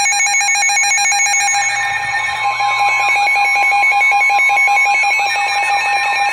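Weather radio alert alarm: a loud, rapidly pulsing electronic alarm tone, with sweeping warbling tones joining about two seconds in.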